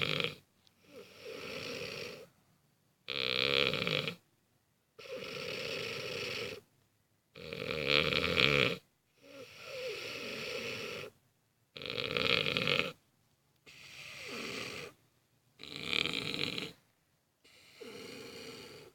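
A drunk person snoring heavily in deep sleep: a loud rattling snore alternates with a softer, hoarse breath, one full breath about every four seconds, with short pauses between them.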